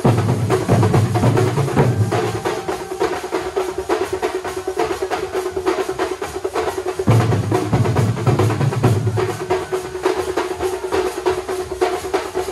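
Thambolam drum troupe playing: many large stick-beaten drums in a fast, dense rhythm. Heavy bass drumming swells in twice, at the start and again about seven seconds in, over a steady held note.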